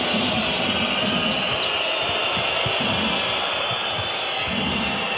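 A basketball being dribbled on a hardwood court, over the steady noise of a large arena crowd.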